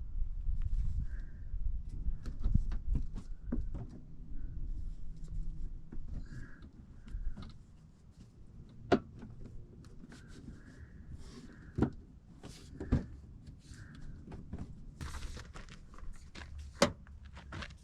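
Scattered knocks, taps and several sharp metallic clinks, the loudest about nine, twelve, thirteen and seventeen seconds in, as tools and brake parts are handled during a front brake pad change. A low rumble lies under the first few seconds.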